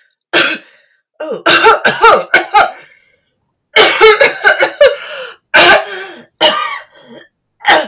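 A woman coughing and choking in several fits, with strained, pitched gasps between the bursts: acted as a poisoning by an inhaled poison spray.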